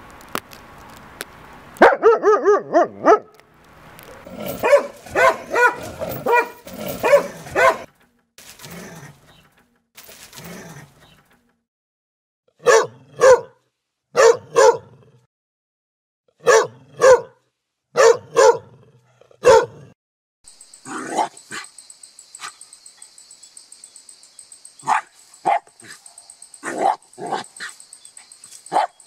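Dogs barking: a quick run of high yaps, then clusters of barks, then single sharp barks in twos and threes. In the last third, smaller barks sound over a steady high hiss.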